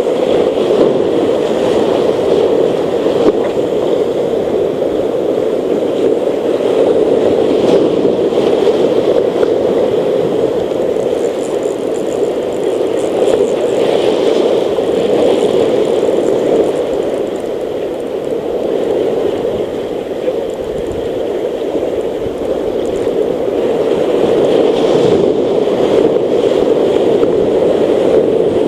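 Steady roar of surf breaking and washing over rocks.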